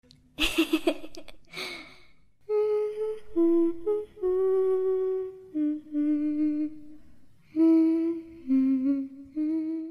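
A voice humming a slow melody of long held notes that step up and down, after two short noisy bursts in the first two seconds.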